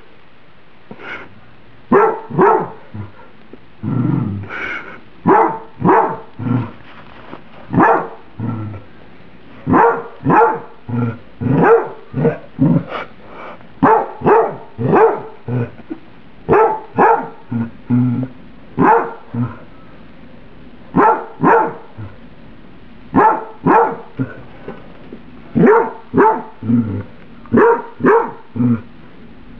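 Pet dog barking over and over, about one to two barks a second with short pauses, at a bowl of microwaved spaghetti, as she does when her food is too hot.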